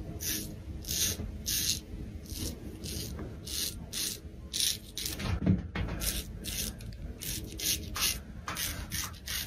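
Straight razor scraping three days' stubble off a lathered cheek in short strokes, about two a second.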